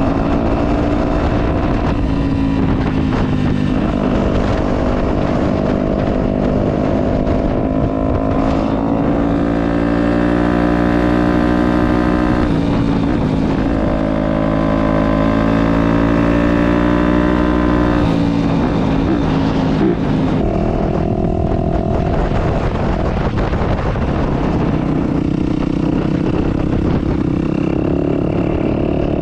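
Dirt bike engine running under way, heard from the bike itself, with wind noise over the microphone. The engine note rises and holds higher for several seconds past the middle, then drops back.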